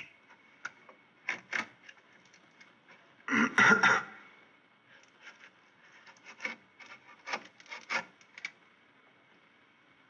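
Metal tool scraping and gouging at wood in short, irregular strokes, the longest and loudest about three and a half seconds in, then a run of quick short scrapes. A sharpened spoon worked into the planks of a prison-cell door, slowly and cautiously to keep the noise down.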